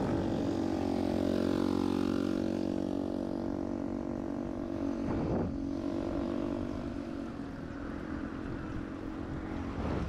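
An engine running with a steady drone.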